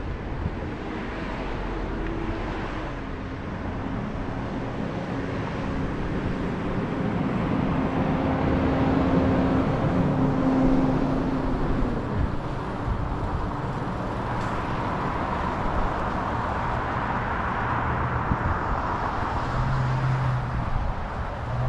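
Road traffic noise: a steady rush of passing cars and engine hum, swelling a little in the middle.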